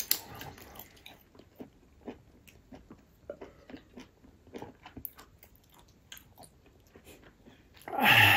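A person chewing food, with many small irregular mouth clicks. A brief loud vocal sound comes near the end.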